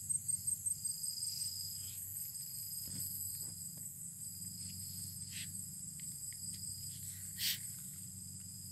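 Steady chorus of crickets and other insects: several high, shrill trills held at different pitches, one of them pulsing rapidly, over a low steady hum. A brief soft burst of noise comes about seven and a half seconds in.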